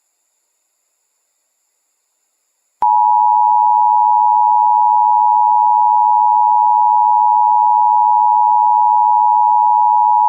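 Emergency Broadcast System attention signal: a steady two-tone alert (853 and 960 Hz) that comes on abruptly with a click after about three seconds of dead air and holds unchanged.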